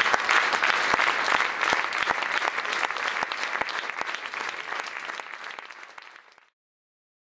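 Theatre audience applauding, many hands clapping together; the applause fades away and stops about six and a half seconds in.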